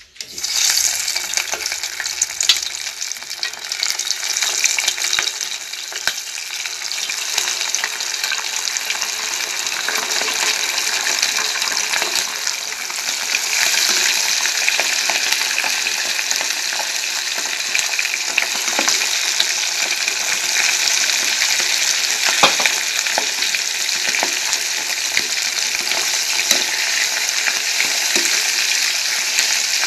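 Chicken pieces going into hot oil in a stainless steel pot start frying with a sudden loud sizzle right at the start, which runs on as a steady dense sizzle with scattered pops and crackles.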